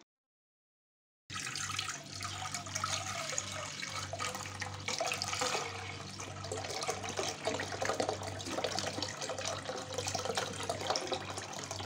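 Milk pouring in a steady stream into a nonstick pot, splashing as the pot fills, with a low steady hum underneath. The sound starts about a second in, after dead silence.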